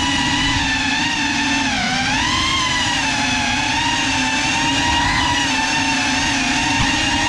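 Small drone's electric motors and propellers whining steadily, the pitch dipping and then rising about two seconds in.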